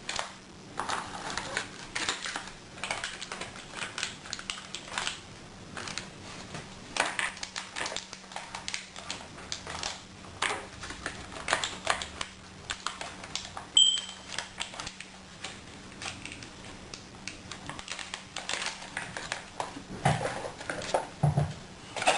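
Irregular light clicks, taps and rustles of small plastic items and packaging being handled. A short high beep sounds once about 14 seconds in, over a faint steady hum.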